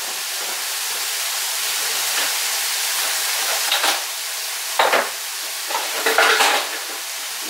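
Turkey meat sizzling steadily as it fries in a pan, with a few short clatters of kitchen utensils about four, five and six seconds in.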